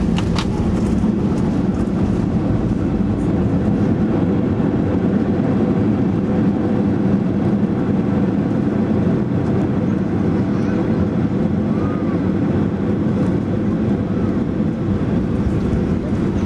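Steady, loud rumble of an Airbus A320's engines and airflow heard from inside the cabin as the airliner rolls down the runway after landing.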